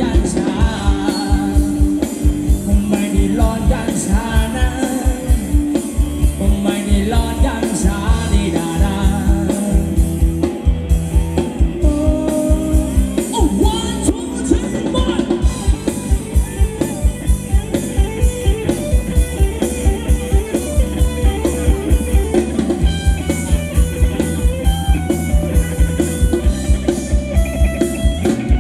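Live Thai ramwong dance band playing, with a steady, fast drum beat under a melody line.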